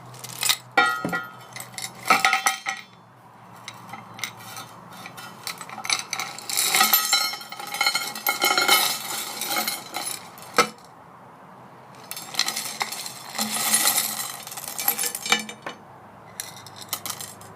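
Small aluminum nuggets, cast by dripping molten aluminum into water, clinking and rattling together as they are handled, in several bursts of sharp metallic clinks with a brief ring.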